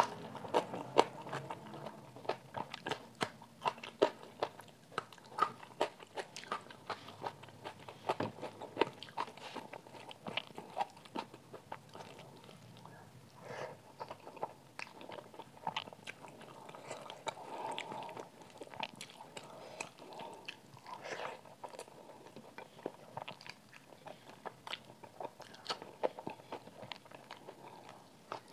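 Close-miked crunching and chewing of food eaten by hand: crisp bites of raw red onion at the start, then chewing of rice mixed with curry. The sharp crunches come thick and fast for the first ten seconds or so, then thin out.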